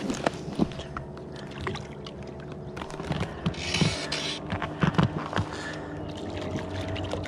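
Handling noises in an inflatable rowing boat while fly fishing: scattered light knocks and rustles of tackle against the boat over a steady low hum, with a short hiss about four seconds in.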